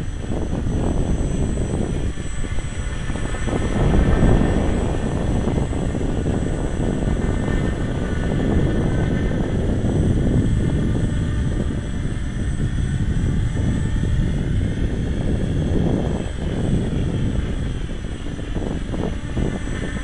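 RC tricopter's electric motors and propellers whining in flight, the pitch drifting up and down as the throttle changes. Wind buffeting on the microphone rumbles loudly under it, with a gust swelling about four seconds in.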